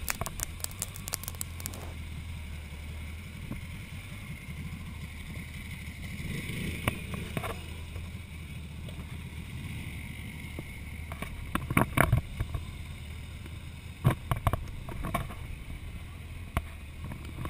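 Motorcycle engine running steadily at low revs, heard through a camera mounted on the bike, with wind on the microphone. A few short knocks come in the second half.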